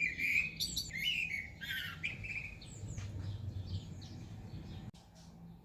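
Songbird singing a quick series of chirps and warbled notes, loudest in the first couple of seconds, then fainter and more scattered.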